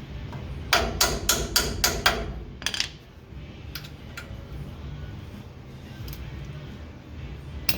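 A hammer tapping on metal brake hardware: a quick run of six blows, about four a second, then a single blow, a few light clicks, and one last sharp blow near the end.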